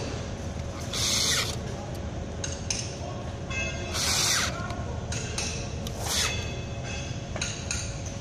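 Cordless drill/driver run in several short bursts while fastening the cable-entry box of an electric chain hoist, the loudest bursts about one, four and six seconds in, over steady workshop background noise.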